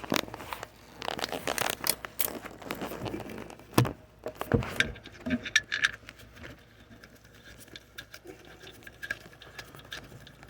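Clicks and scrapes of a small Allen bolt and hex wrench against metal as a bolt is fitted into an engine's oil block-off plate. The handling is busy for the first half, with a couple of sharper clicks around four seconds in, then fades to scattered light clicks.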